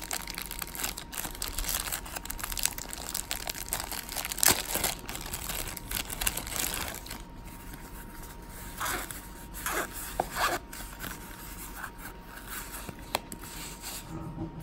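Thin plastic bag crinkling and rustling as a small zippered earbud carrying case is pulled out of it: dense and continuous for about the first half, then quieter handling with a few sharp rustles.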